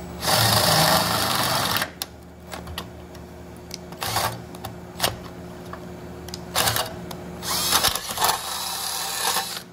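Cordless drill boring out a pilot hole in thin Corten steel plate with a larger twist bit. The cutting is loud for the first two seconds or so, then the motor runs more quietly, with several short louder bursts as the bit bites into the steel.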